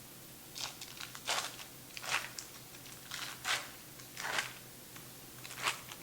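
Foil wrapper being peeled and crinkled off a block of cream cheese: a series of short crinkling, tearing rustles.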